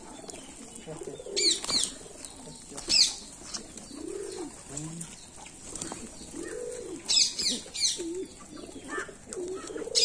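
Flock of domestic pigeons cooing, with low coos every second or two. A few louder clusters of sharp, high-pitched chirps cut in, the loudest about three seconds in and another run around seven seconds in.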